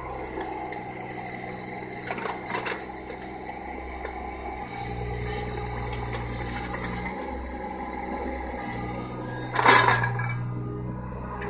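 John Deere 17D mini excavator's diesel engine running, its hum swelling and dipping as the tracks and arm work. A few light knocks come about two seconds in, and a loud clatter of bucket against wood comes near the end.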